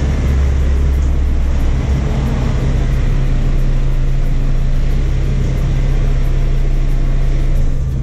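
2017 Mini Clubman's engine running with a steady low drone as the car creeps forward at low speed. The deepest part of the drone drops slightly about three seconds in.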